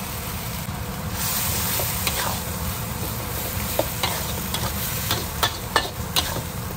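Bitter gourd leaves, corned beef and canned corn sizzling in hot oil in a wok while a metal spatula stirs them. The sizzle swells about a second in, and the spatula knocks and scrapes against the wok several times in the second half.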